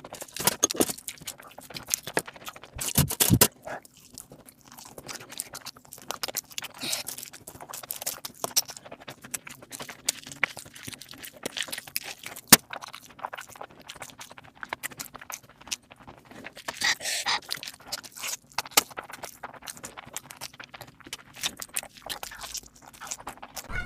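Close-miked eating sounds: food being chewed and crunched, with irregular crackles and mouth clicks.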